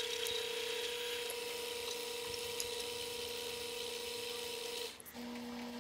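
Small benchtop metal lathe running with its chuck spinning, giving a steady motor whine. About five seconds in the whine cuts off and a lower, steady hum takes its place.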